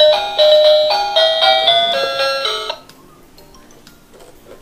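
Dickie Toys Light & Sound ice cream van playing its electronic ice-cream-van chime tune, which stops abruptly a little under three seconds in. A few faint clicks of the plastic toy being handled follow.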